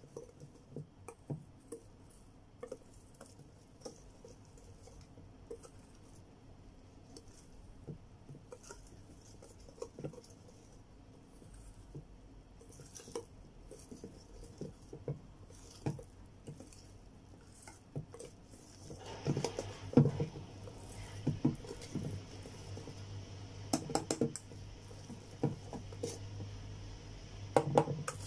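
Wire balloon whisk stirring thick chocolate batter in a stainless steel bowl: soft wet squishing with irregular clicks of the wires against the bowl. About two-thirds of the way through a steady low hum comes up behind it, and the whisk clinks louder against the metal a few times.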